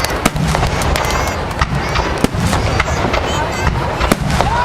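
Aerial fireworks display: rapid crackles and sharp bangs packed closely together over a continuous low rumble.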